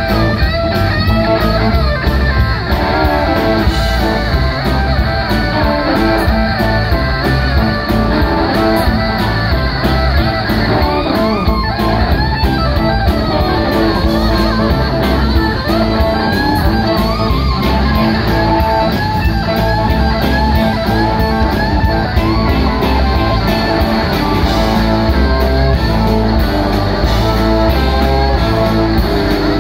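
Live blues-rock band playing loud: an electric guitar takes a lead with fast runs and bent notes over bass and a steady drum beat.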